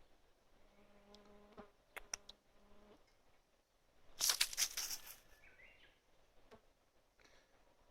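A flying insect buzzing close by with a steady hum for about two seconds. It is followed just after four seconds by a brief, louder rustle lasting about a second.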